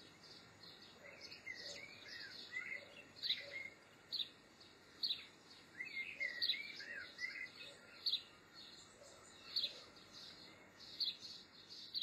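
European goldfinch calling: sharp high notes repeating about once every second or so, with two spells of quick twittering, about two seconds in and again around six seconds in, over a faint outdoor hiss.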